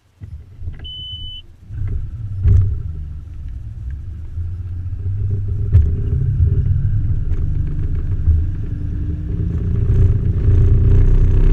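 Bass boat outboard motor starting and running at low speed, a steady low rumble that grows slowly louder as the boat gets under way. A short electronic beep about a second in.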